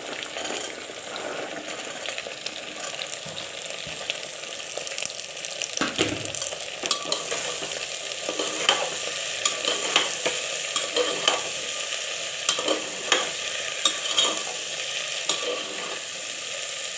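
Vegetables sizzling as they fry in oil in an aluminium pressure cooker, stirred with a steel ladle that scrapes and clinks against the pot. The clinks come often from about six seconds in.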